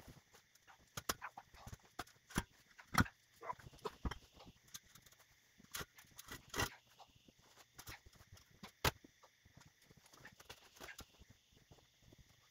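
Footsteps crunching in deep snow, with irregular sharp knocks and scrapes as a heavy steel forge-press frame is shoved and tipped along.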